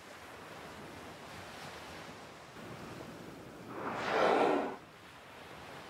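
Humpback whale blow: a single exhalation lasting about a second, just past the middle, over a steady wash of sea.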